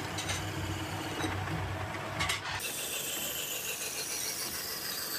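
Workshop machinery running: a low hum with scattered clicks and clatter, then about two and a half seconds in the sound changes abruptly to a steady high whine that falls slightly in pitch.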